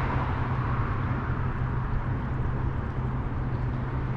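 A small boat's motor running steadily underway, a constant low hum under a rushing hiss.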